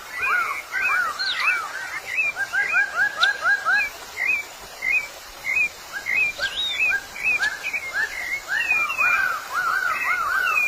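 Bird calling: fast series of short, arched whistled notes, several a second, at two pitches, with brief pauses between runs.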